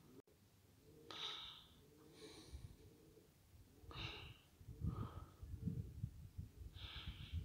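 Faint breathing close to the microphone, a few short breaths. About two and a half seconds in, an uneven low rumble of wind on the microphone starts and grows louder.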